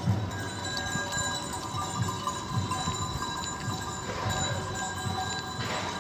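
Background music with held chime-like tones over a regular low beat.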